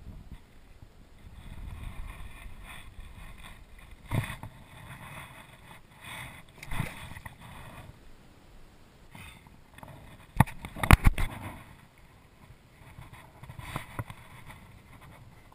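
Water swishing at the side of a plastic kayak as a redfish is let go by hand, then a kayak paddle being handled and knocking against the hull, with a quick cluster of sharp knocks about ten to eleven seconds in as the loudest sound.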